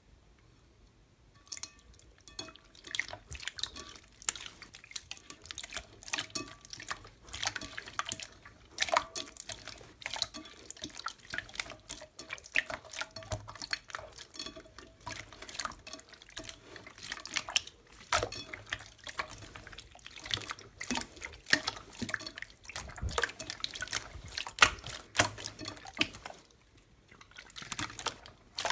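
Slime being squished and pressed by hand, making a dense, irregular run of wet clicks and pops.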